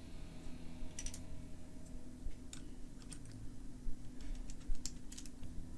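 Irregular sharp plastic clicks from keyboard keycaps being handled, about ten in all, scattered unevenly, over a steady low hum.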